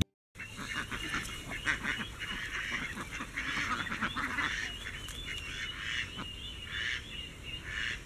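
A large flock of domestic ducks quacking and calling, many short calls overlapping without a break.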